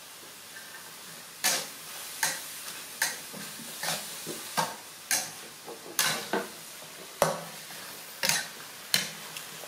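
Metal spatula scraping and clanking against a steel wok while beef and vegetables are stir-fried, about a dozen quick strokes at a fairly even pace starting about a second and a half in, over a low steady hiss.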